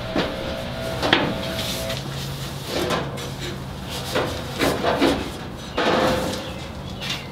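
Sheet-metal Bronco front fender being handled and pushed into place against the body: a handful of scattered knocks and rubbing of metal against metal.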